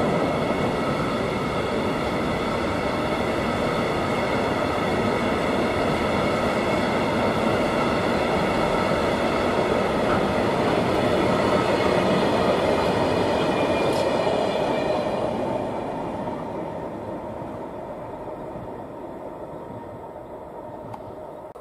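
Container freight wagons rolling past on the track, a steady rumble with several steady high tones over it; the sound dies away from about 15 seconds in as the end of the train goes by.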